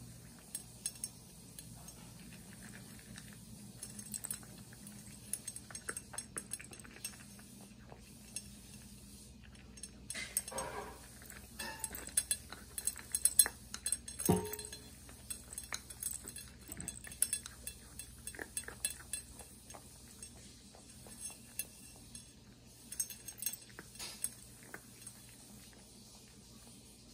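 Cat eating from a stainless steel bowl: irregular small chewing and licking clicks, with clinks against the metal bowl. The clicks are busiest about ten to fifteen seconds in, where one sharper clink rings briefly.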